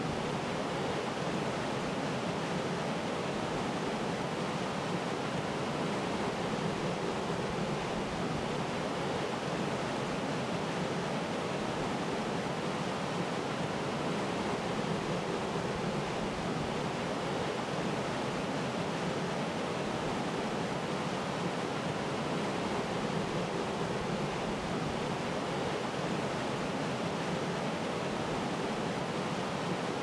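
Waterfall rushing steadily: an even, unbroken roar of falling water with no other sounds standing out.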